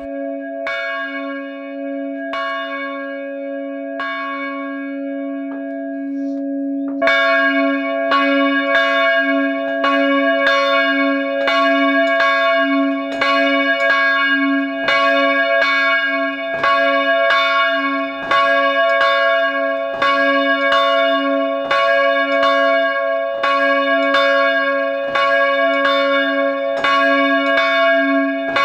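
Large church bell rung by a rope, its hum sounding throughout. It gives a few lighter, spaced strokes, then about seven seconds in breaks into louder strokes at a steady pace of a little more than one a second.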